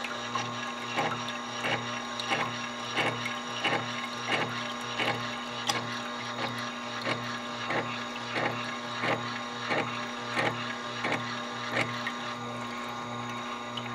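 Motor-driven sharpening wheel with a Japanese waterstone disc humming steadily while a tungsten carbide fly cutter is honed against it. The cutter scrapes on the stone in regular pulses, about three every two seconds, over the hum.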